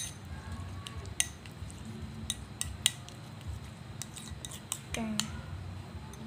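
Metal spoon stirring a thick avocado and turmeric paste in a ceramic bowl, clicking and scraping against the bowl at irregular moments, several times in quick succession around two to three seconds in and again around four to five seconds in.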